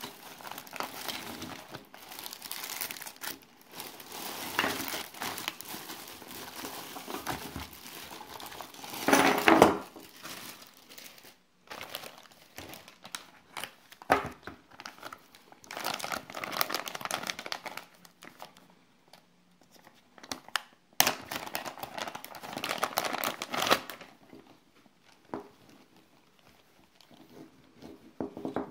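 Clear plastic zip-lock bags crinkling and rustling as they are handled and opened, in irregular bursts with short pauses; loudest about a third of the way through, fading to faint handling noise near the end.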